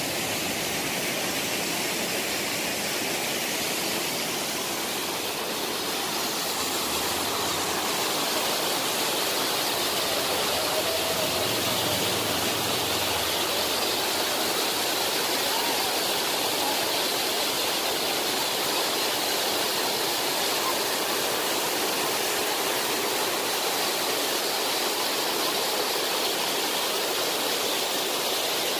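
Waterfall plunging into a rock pool: a steady rush of falling water.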